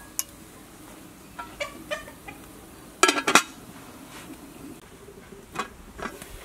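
Metal lid of a large aluminium cooking pot set down onto the pot with a clatter about three seconds in, with a few lighter metallic clinks before and after.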